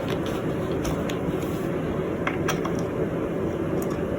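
Steady mechanical hum with a few light, sharp clicks, the first within the first second and two more a little past the middle.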